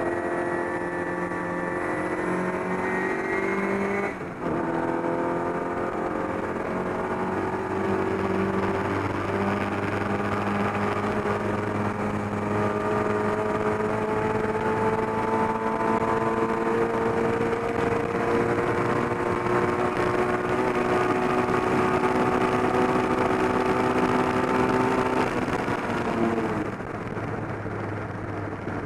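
Austin Healey Sprite's BMC A-series four-cylinder engine pulling hard under racing load, heard from inside the cabin. The revs climb for about four seconds, then a quick upshift drops the pitch. The engine then winds up slowly and steadily for about twenty seconds. Near the end the revs fall away and the engine note goes quieter.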